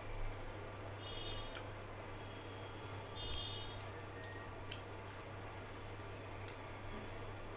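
Close-up eating sounds: chewing and small wet mouth clicks as fried pomfret is picked apart by hand and eaten, with scattered sharp clicks over a steady low hum.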